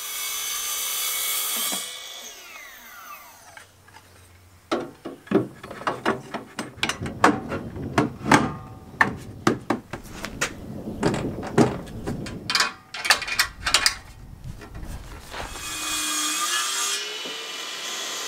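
Ryobi brushless cordless track saw cutting plywood, its pitch falling as it winds down about two seconds in. Then a long run of sharp knocks and clatters of woodworking assembly. Near the end a Ryobi cordless brushless compact table saw spins up with a rising whine and runs.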